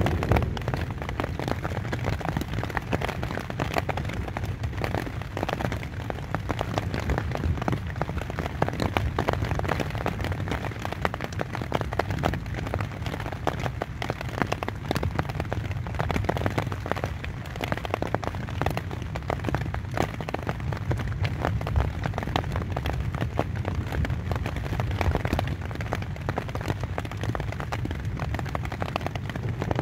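Rain falling on a tent's fabric, heard from inside the tent: a dense, steady patter of countless drops over a low rumble.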